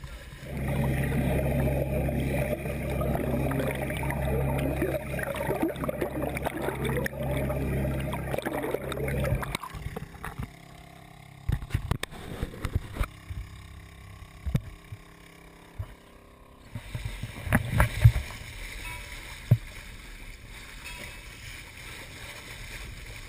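Water rushing and splashing along a small sailboat's hull, loud for the first nine seconds or so, then quieter lapping broken by a few sharp knocks.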